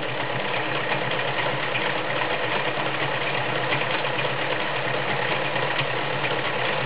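Kenmore Model 1941 sewing machine running steadily at speed, stitching a stretch stitch.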